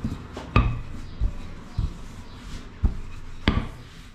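Wooden rolling pin rolling out pizza dough on a tabletop, knocking against the table in about five irregular thumps; the loudest come about half a second in and near the end.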